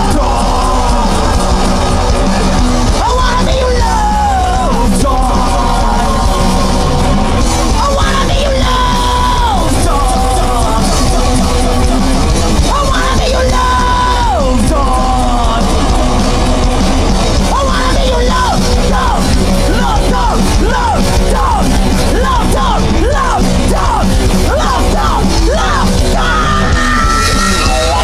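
Punk rock band playing, with electric guitars and drums and a singer yelling the vocals.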